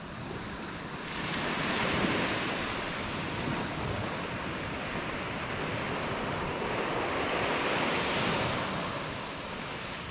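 Surf washing onto a beach in a steady hiss that swells twice, with wind buffeting the microphone.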